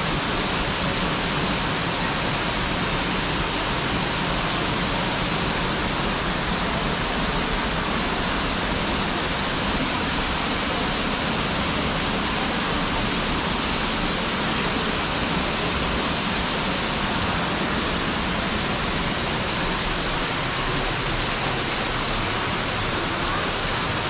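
Waterfall pouring steadily: a loud, unbroken rush of falling water with no change in level.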